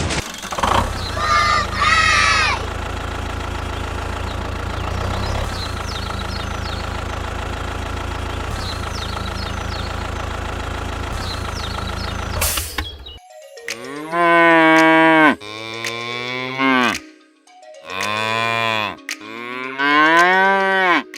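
A steady mechanical drone for about twelve seconds, then it stops and a cow moos four times in long rising-and-falling calls.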